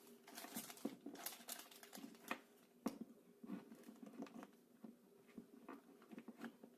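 Faint, irregular light clicks and rustles of hands handling a small vinyl toy figure and its plastic packaging.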